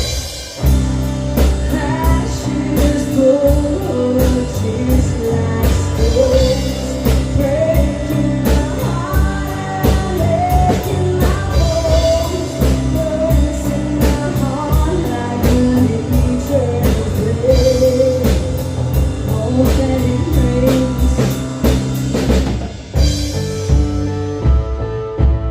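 Rock band playing, with drum kit, guitar and a melody line that bends in pitch. About 23 seconds in, the drums stop and a lone guitar carries on.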